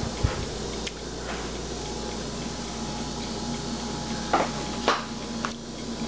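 A few short knocks and taps as a glass dessert cup is handled and set on a tiled counter, the sharpest near the end. Under them is a steady low hum.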